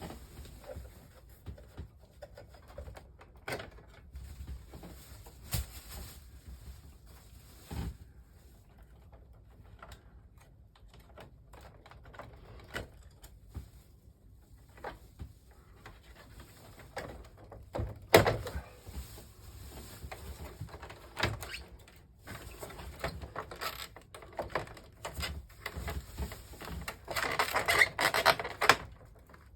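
Irregular clicks and knocks of plastic air-conditioner parts being handled, growing into a dense clatter near the end.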